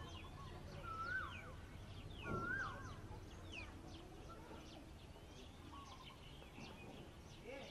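Several birds calling: two louder rising-and-falling whistled phrases about one and two and a half seconds in, among many short high chirps, over a faint steady low rumble.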